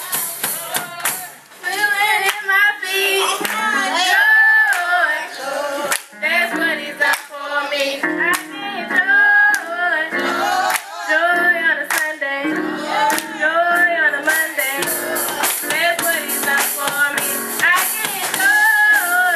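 A youth choir singing a gospel song together, mixed young voices, over a steady beat of sharp hits.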